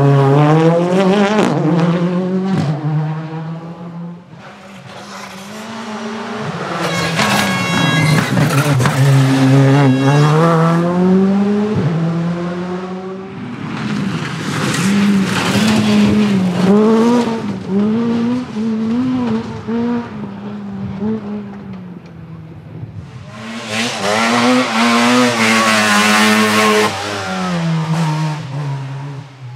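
Rally car engines revving hard at speed, the pitch climbing and dropping with each gear change. The sound swells and fades several times as cars go by.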